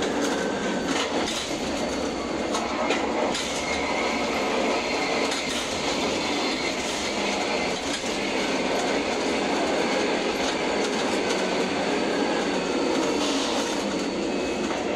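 Ship-to-shore container crane machinery running, heard from the operator's cab: a steady rattle and rumble from the trolley and hoist as a loaded spreader is carried from the ship's hold out over the quay and lowered, with scattered clicks and faint held whines.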